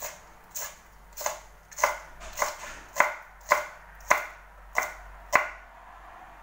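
Chopping on a kitchen cutting board: about ten sharp, even strokes, roughly two a second, each with a brief ring, getting louder and then stopping near the end.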